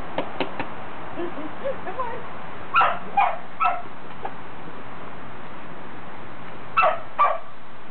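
Miniature Australian Shepherd puppy barking and yipping: a few small yips, then three sharp barks in quick succession about three seconds in, and two more near the end.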